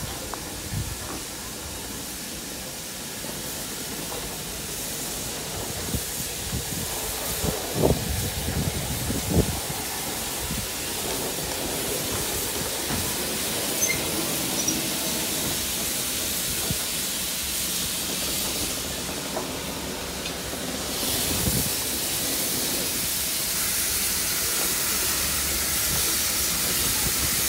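Steam locomotive 76084, a BR Standard Class 4MT 2-6-0, standing with steam hissing steadily, with a few sharp metallic knocks about eight and nine and a half seconds in. The hiss grows louder in the last few seconds.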